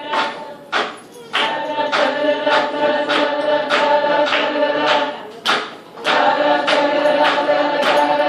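Street brass band horns playing held melody notes together over a steady percussion beat of about two hits a second. The horns drop out briefly about a second in and again after about five seconds, while the beat carries on.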